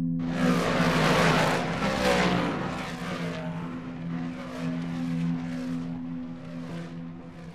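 Dirt-track race cars speeding past. A loud rush of engines comes in with falling pitch as the first cars go by, then more cars pass in a string of weaker rushes.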